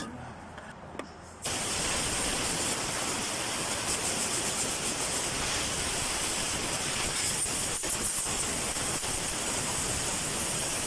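Aerosol electrical contact cleaner spraying in one long, steady hiss that starts suddenly about a second and a half in. It is being used to clean burnt wiring at the engine computer's connector.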